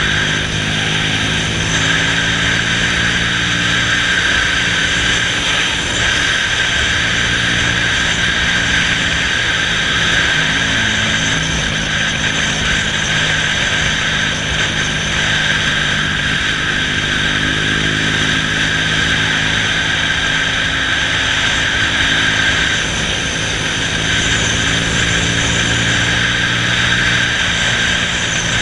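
Honda Astrea's small single-cylinder four-stroke engine running at cruising speed, its note shifting a few times as the road speed changes, under steady wind rushing past the microphone.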